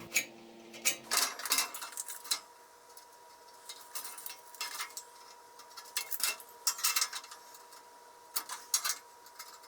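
A sharp steel awl scribing cut lines into steel bars: irregular light scrapes and metallic clicks, over a faint steady hum.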